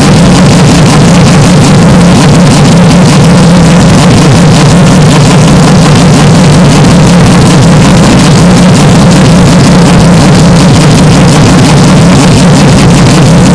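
Historic Formula 1 racing car engine sound, deliberately overdriven into heavy distortion and clipping, heard as a constant, very loud harsh drone that holds one pitch with no rise or fall.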